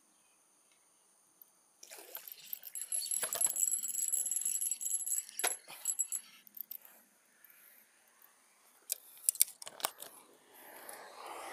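Jangling, clinking handling noise with rustling, from about two seconds in until about seven seconds. A few sharp clicks follow near the end.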